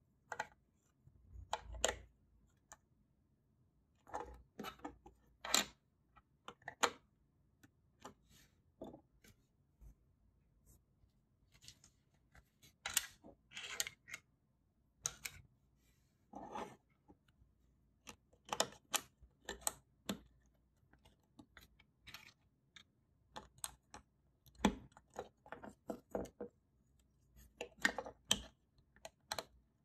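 Plastic Lego bricks clicking and snapping as they are handled and pressed together: irregular sharp clicks, singly or in quick clusters with short pauses between.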